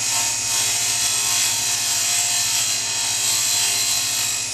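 Diamond dresser on an XY slide cutting across a spinning grinding wheel to true it: a steady high hiss that stops near the end, over the steady hum of the grinder running.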